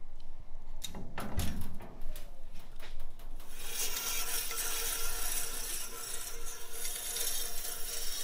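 Old 36-inch Oliver bandsaw: a few clunks and a low thump in the first two seconds, then the machine running with a steady hum and a strong hiss.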